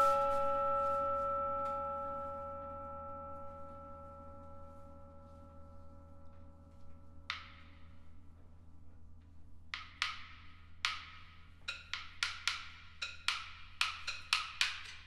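Live percussion ensemble: a struck bell-like metal tone rings and slowly fades over the first seven seconds. Then sharp, dry knocks from hand percussion begin, sparse at first and coming faster toward the end, about two a second.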